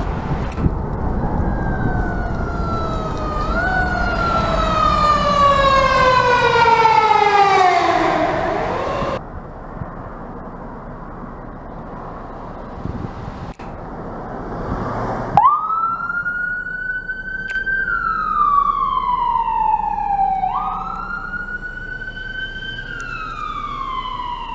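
Emergency-vehicle sirens wailing over road traffic noise. One siren slides slowly down in pitch and stops abruptly about nine seconds in. A few seconds of traffic noise follow, then a siren starts up sharply about fifteen seconds in and wails in slow falls and quick rises.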